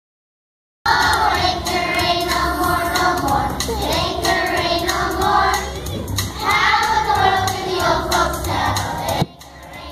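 Silence for about the first second, then a children's choir singing together with instrumental accompaniment. The level dips briefly near the end, between phrases.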